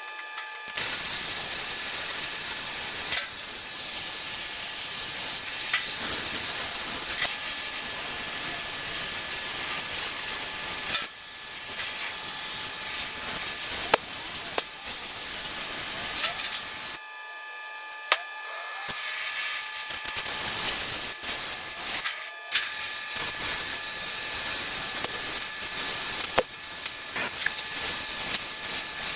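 A cutting torch hissing steadily as it cuts through the truck's steel, with scattered crackles and pops. It stops briefly about two-thirds of the way through and again soon after.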